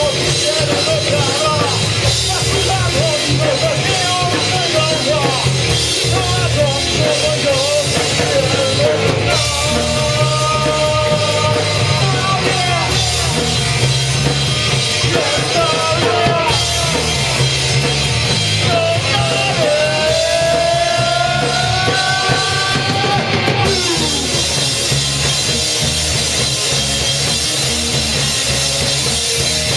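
A rock band playing live with a full drum kit and a melody line that slides and bends in pitch.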